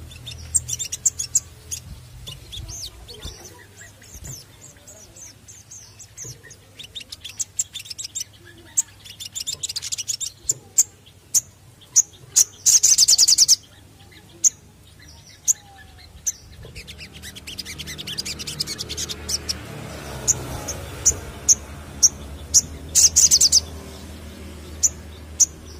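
Olive-backed sunbird (sogon) singing: rapid high-pitched twittering and sharp repeated chirps, broken by a loud, dense trill lasting about a second around the middle and another near the end.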